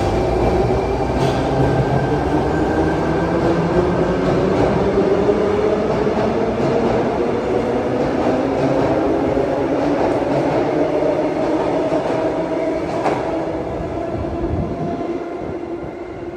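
Sydney Trains double-deck electric train accelerating out of an underground station: the traction motors' whine rises steadily in pitch over the rumble of the wheels, then fades as the last carriage leaves.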